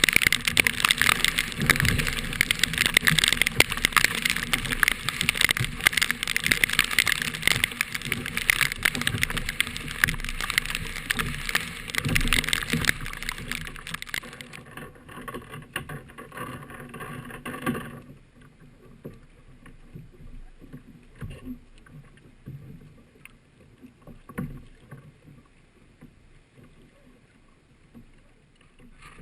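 Wind and water noise from a kayak at sea in rough weather: a loud, dense rush of wind and splashing. It thins abruptly about 14 seconds in and drops to a faint hiss with small knocks about 18 seconds in.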